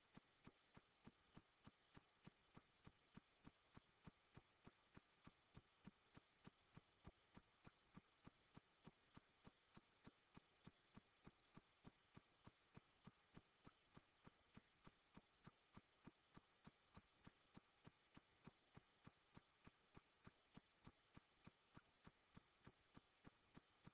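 Near silence with faint, evenly spaced ticks, a little under three a second.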